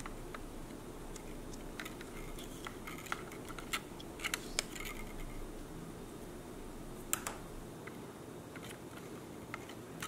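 Scattered light clicks and taps of metal tweezers and fingers handling the plastic housing of a Kidde smoke alarm, as small foam inserts are picked out and set down on a hard countertop, a sharp double click about seven seconds in. A faint steady low hum runs underneath.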